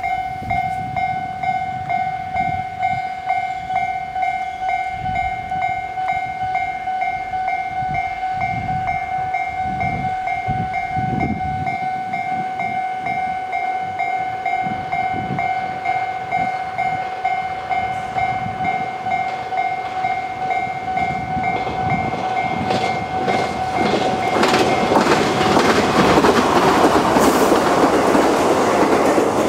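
A level-crossing warning bell rings in a steady, even ding-ding about twice a second. In the last several seconds a Chichibu Railway 5000 series electric train (ex-Toei subway 6000) comes up and passes, its running noise and clacking wheels over rail joints growing louder over the bell.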